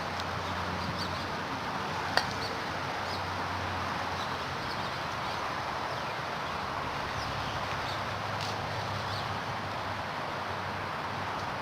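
Steady outdoor background noise with faint, scattered high chirps and a low hum, broken by one sharp click about two seconds in.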